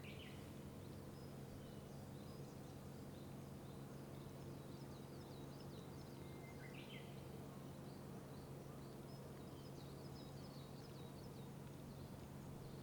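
Faint outdoor ambience: a steady low hum of distant traffic under various small birds calling, with a quick rising call near the start and again about seven seconds in, and a run of high chirps in between.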